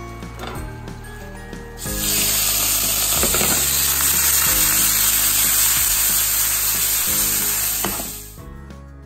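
Raw shrimp dropped into hot olive oil in a frying pan, sizzling loudly from about two seconds in until it fades out near the end. Background music plays throughout.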